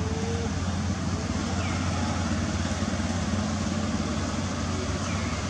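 A steady low motor hum, like an idling engine, over a constant background hiss.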